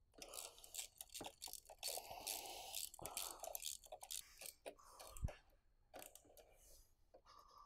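Light handling noise of small metal hardware: scattered clicks, scrapes and crunchy rustles as fuel rail bolts and parts are picked up and fitted.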